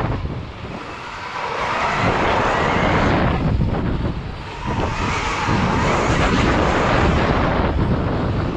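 KTM Freeride E-SX electric dirt bike ridden round a dirt track: heavy wind buffeting on the bike-mounted camera and knobby-tyre and dirt noise, with the electric motor's whine under it and a brief lull about a second in.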